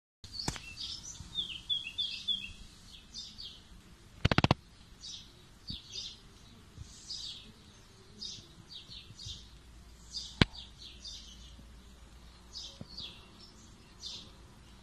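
Small birds chirping in short, high-pitched calls throughout, with a quick run of chirps near the start. A brief rapid clatter of clicks, the loudest sound, comes about four seconds in, and a single sharp click about ten seconds in.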